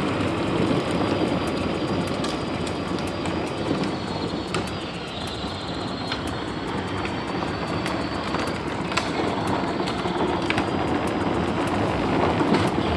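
Power Wheels ride-on quad bike running on a 12-volt battery: hard plastic wheels rolling and clattering over pavement, with a faint steady electric motor whine.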